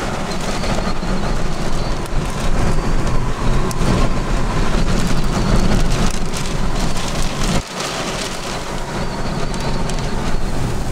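Heavy rain and wind around a storm-chase vehicle: a steady hiss of rain peppered with small ticks, over a low wind rumble that drops away about three-quarters of the way through.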